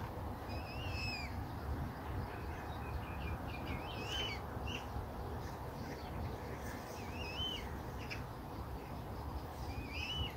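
Small birds chirping in short rising-and-falling phrases, several times, over a steady low background rumble.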